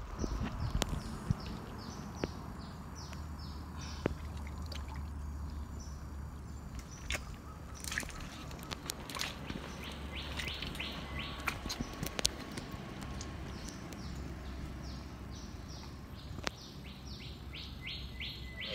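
Wet squelching and sharp clicks of a hand digging into a waterlogged crab burrow in mangrove mud. Over it, a bird repeats short high chirps in quick runs three times, and a low steady hum sits underneath.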